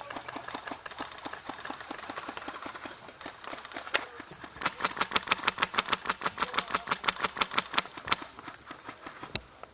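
Airsoft rifle firing on full auto: a rapid, even rattle of shots, about eight a second, fainter at first and much louder from about halfway through, then dropping off shortly before the end.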